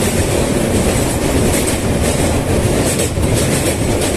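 Passenger train running over a riveted steel girder bridge, heard from on board: a loud, steady noise of the wheels on the rails.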